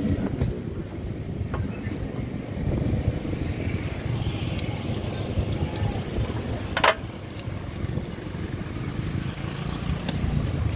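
Metal spatula tapping and scraping on a metal pukis mould, a few light clicks with one sharper clack about seven seconds in, over a steady low rumble.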